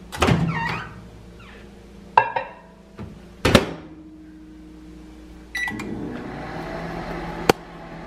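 Microwave oven being set and started: a couple of knocks, short keypad beeps twice, then the microwave starts running about two-thirds of the way in with a steady hum and one sharp click.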